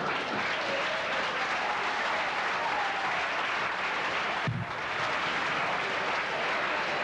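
Audience applauding steadily, with a single low thump just past halfway.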